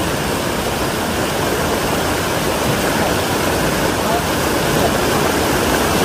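Rushing water of a small mountain-stream cascade tumbling over rocks into a pool close to the microphone: a loud, steady rush.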